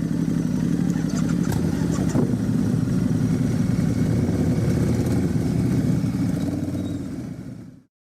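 A vehicle engine idling steadily, a low rumble that fades out near the end.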